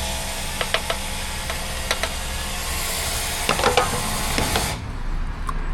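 Petrol rushing from a pump nozzle into a fuel tank, a steady hiss with a few sharp clicks, cutting off sharply about five seconds in.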